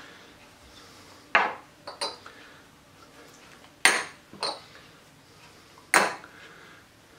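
Small glass prep bowls clinking as they are set down and stacked: about five sharp clinks with a short ring, the loudest about a second and a half in, near four seconds and about six seconds in.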